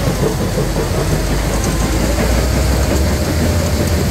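Iveco T-Way tipper truck's diesel engine pulling under load as the truck sets off up a gravel ramp with a heavily loaded semi-trailer; a steady whine joins about two seconds in.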